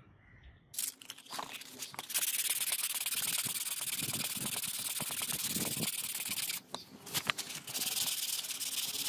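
Hand-sanding with P220 sandpaper rubbed back and forth over a small part: a dense, steady rasping that starts about a second in with a few separate strokes, breaks off briefly past the middle with a few clicks, then carries on.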